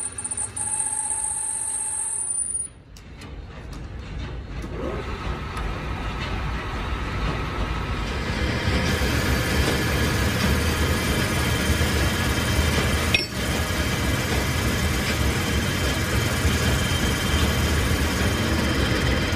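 Metal lathe turning a steel truck axle shaft, the motor and spindle running while the cutting tool shaves the steel into chips. The noise drops suddenly about three seconds in, builds back over several seconds, and then runs steadily.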